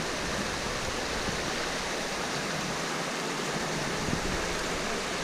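A mountain river rushing steadily over rapids and chutes, a constant even sound of moving water.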